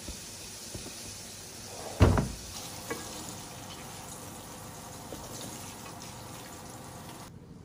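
A kitchen cabinet shutting with one sharp thump about two seconds in, over a steady faint hiss. A few light metal clicks follow, from tongs against a frying pan.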